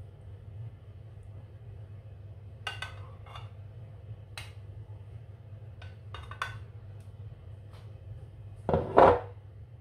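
Metal spoon clinking against a glass baking dish while béchamel sauce is spooned over a lasagna layer: a scatter of light clinks, then one louder knock near the end, over a low steady hum.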